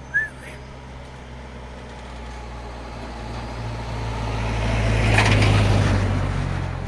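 A motor vehicle passing by, its engine hum and road noise swelling to a peak about five seconds in and then fading.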